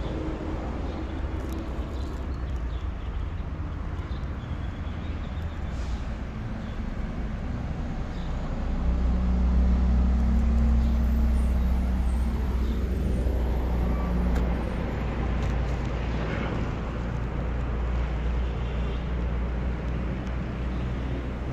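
Steady low rumble of wind on the microphone and road traffic while riding a bicycle, growing louder about nine seconds in.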